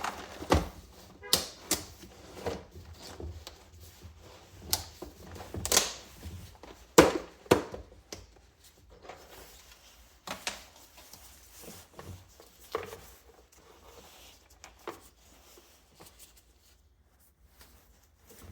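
Irregular clicks, taps and knocks of hand work on a box fan's small electric motor, as its metal parts and housing are handled and taken apart. The knocks are busiest in the first half and grow sparser later.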